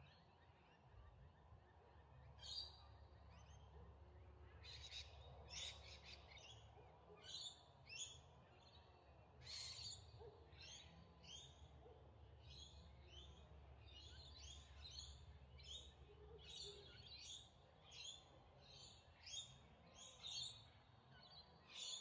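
Faint bird chirps: short high calls repeating irregularly about once a second, beginning a couple of seconds in, over a low steady rumble.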